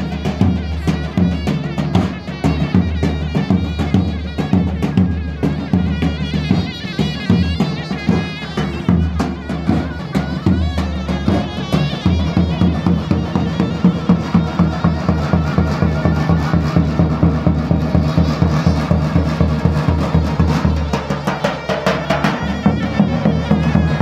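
Davul drum and zurna playing lively folk dance music: a steady, driving drum beat under a shrill, wavering reed melody.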